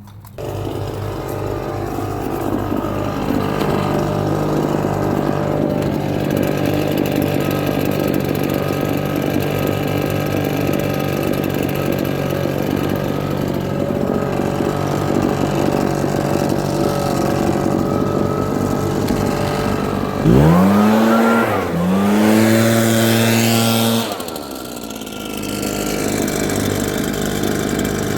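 Avant 640 compact loader's diesel engine running steadily under work. About twenty seconds in, the engine rises in pitch twice in quick succession, the loudest part, then drops back to its steady running.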